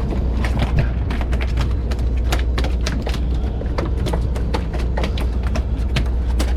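Steady low drone of a boat's engine, with frequent irregular clicks and knocks over it.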